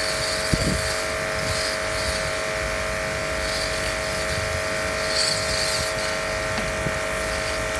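Steady hum of an electric motor in the solar-panel cleaning rig. Over it, hissing swishes swell every second or two as the wet rotating brush scrubs and water sprays across the panels.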